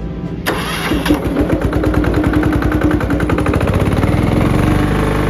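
Mobile pressure washer's engine starting about half a second in, then settling into a steady, fast-beating run.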